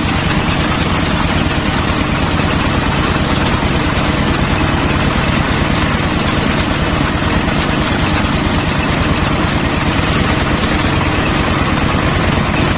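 Diesel engine of a portable hydraulic water well drilling rig running steadily with a fast, even chugging, then cutting off suddenly.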